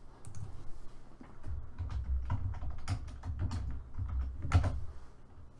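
Computer keyboard being typed on: a run of quick, irregular key clicks as a short entry is typed.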